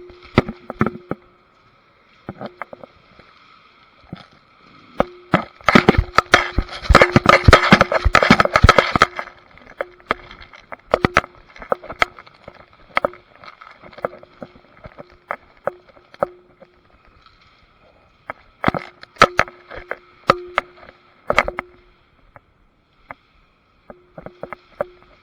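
Airsoft guns firing in a firefight: scattered single shots and short strings of cracks throughout, with a long, dense run of rapid fire from about five to nine seconds in that is the loudest part.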